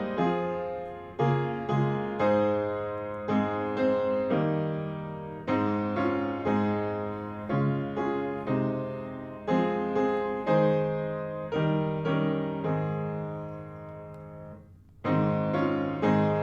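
Piano playing a slow hymn tune in struck chords that die away, with a brief lull about fifteen seconds in before the next phrase begins.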